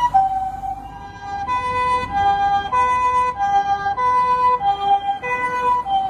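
Japanese ambulance two-tone "pee-po" siren, alternating between a high and a lower note about every half second. It dips in level about a second in, then comes back strong, with a low vehicle rumble underneath.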